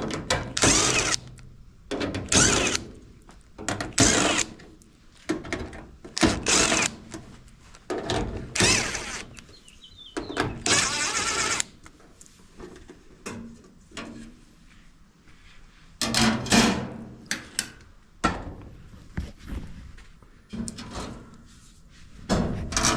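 Irregular knocks, clunks and scrapes of hands and tools working on a Whirlpool clothes dryer's control panel, with a longer scraping noise about ten seconds in.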